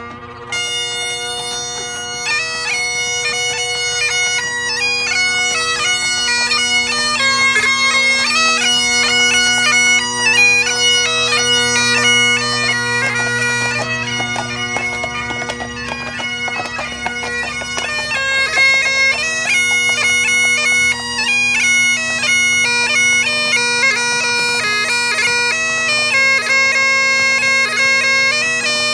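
Great Highland bagpipes playing a tune: a chanter melody stepping from note to note over the steady drones. The melody comes in about half a second in, over drones already sounding.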